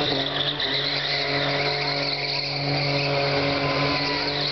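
Car doing a burnout: engine held at steady high revs while the spinning rear tyres screech and smoke on the track.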